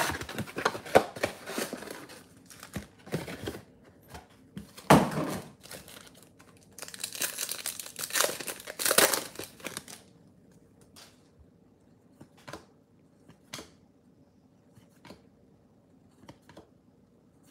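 Cardboard box and trading-card pack wrappers being torn open and crinkled, in loud bursts through the first ten seconds, then faint scattered clicks as the cards are handled.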